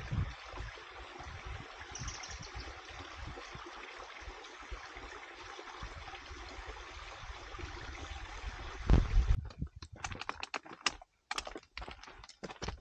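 Steady rushing of a mountain stream, with wind buffeting the microphone in low bumps. About nine seconds in there is a loud thump, the rushing stops, and irregular crunching footsteps on a stony trail follow.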